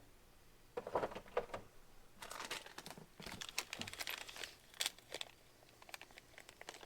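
Light handling noises as pressure washer pump parts and bolts are worked by hand: scattered small clicks and knocks with short bouts of rustling.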